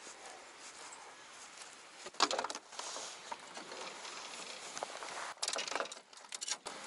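Fishing gear handled on a boat deck: rods and tackle clattering and knocking in two short bursts, about two seconds in and again near the end, over a light outdoor hiss.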